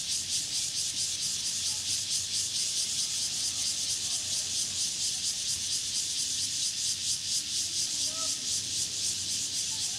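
A chorus of cicadas and other insects, a steady high hiss that pulses rapidly. A few faint bird chirps come about eight seconds in.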